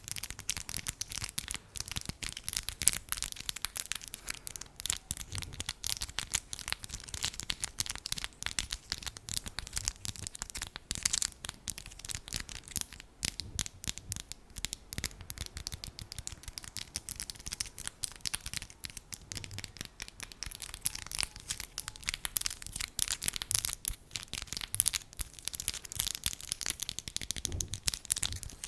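ASMR fingertip tapping: a dense, continuous stream of quick, crisp taps with no pauses.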